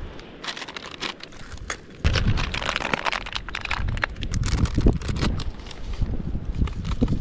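Loose coral gravel crunching and shifting under a person moving on it, louder from about two seconds in, then a plastic seasoning packet crinkling as it is handled.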